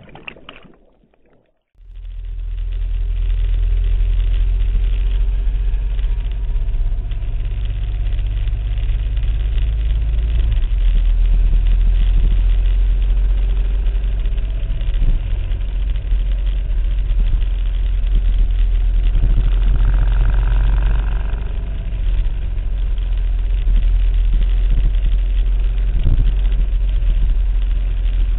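Vehicle engine running steadily at low speed with a heavy low rumble, starting about two seconds in after a short silence. A brief higher tone sounds over it about twenty seconds in.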